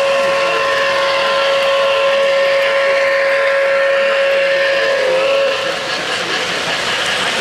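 O-gauge model steam locomotive's sound system blowing one long steam whistle, which cuts off about five and a half seconds in, over the steady rumble of the train running on three-rail track.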